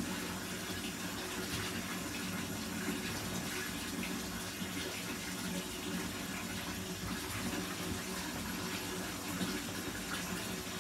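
Water running steadily from a bathtub tap, filling the tub.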